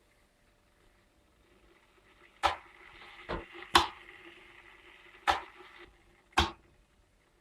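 Five sharp knocks or bangs, irregularly spaced over about four seconds, each with a short ring, over a faint steady hum.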